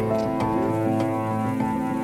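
Background music of held, steady notes that change pitch a few times.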